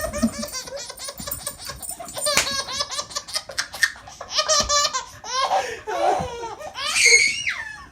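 Baby laughing hard in quick repeated bursts, ending in a high squeal near the end.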